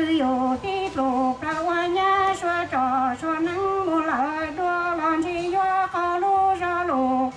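A woman singing a slow Hmong song into a microphone through a PA system, with long held notes that bend and waver. The singing breaks off shortly before the end.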